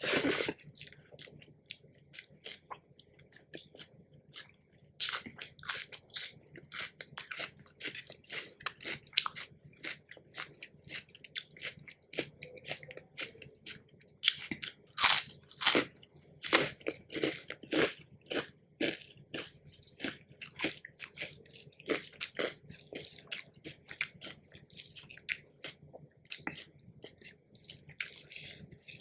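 Close-miked eating: a person chewing a meal, with a run of sharp, crisp crunching bites. The loudest crunches cluster about halfway through.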